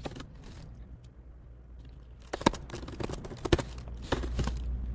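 Computer keyboard keystrokes: a few faint taps, then a cluster of irregular, sharper key clicks in the second half, over a low steady hum.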